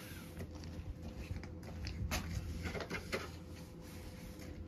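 Steady hum of a room heater running, with a few short knocks about two to three seconds in.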